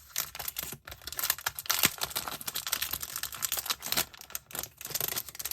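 Paper wrapping being torn and pulled open by hand: a steady run of quick crinkling, crackling rustles.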